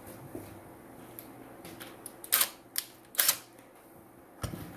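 A few sharp metallic clicks and clatters of hand tools being handled, the loudest cluster about two to three seconds in.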